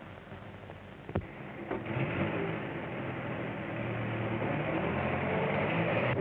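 A sharp click about a second in, then a vehicle running, its sound growing steadily louder.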